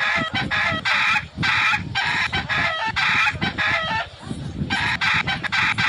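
Chicken giving a rapid series of short, harsh calls, about three a second, stopping for about a second midway and then starting again.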